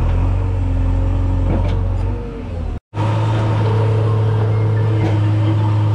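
JCB backhoe loader's diesel engine running steadily close by, a deep even hum. The sound cuts out suddenly for a moment about three seconds in, then the hum carries on.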